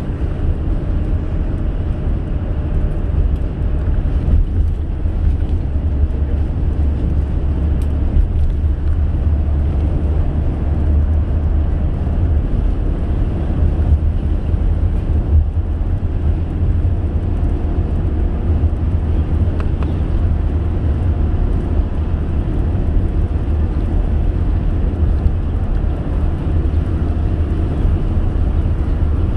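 Steady low rumble of a car driving at speed: tyre, road and engine noise.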